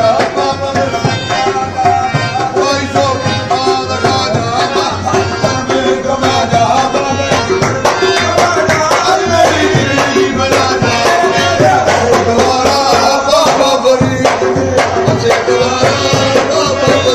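Background music: tabla drumming under a wavering melodic line.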